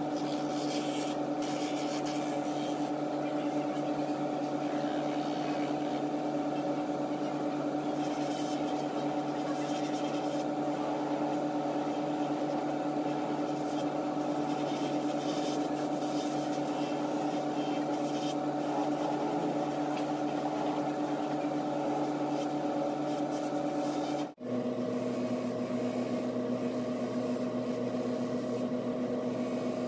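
Shoe-finishing machine's motor and abrasive sanding wheels spinning with a steady hum, with a gritty hiss in the first couple of seconds as a shoe sole is held against a wheel. The hum cuts out for an instant about three quarters of the way through and carries on slightly lower in pitch.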